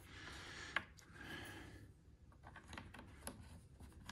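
Faint, scattered light clicks and ticks, one sharper click near the start and more in the second half: small metal pins and a pin punch being handled against the mirror's plastic and metal bracket while the pins that secure the folding-mirror motor are lined up.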